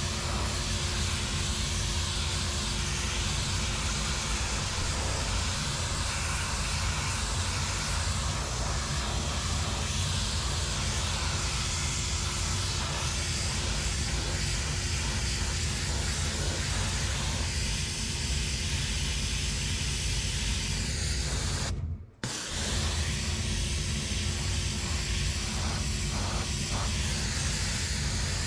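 Steam cleaner lance hissing steadily as its low-pressure steam jet blasts moss off a cracked concrete otter garden ornament, with a low steady hum underneath. The hiss breaks off for a moment about three quarters of the way through, then carries on.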